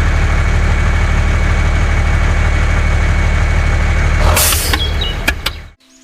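Truck engine idling steadily, then a short hiss about four seconds in and two clicks before the sound cuts off suddenly.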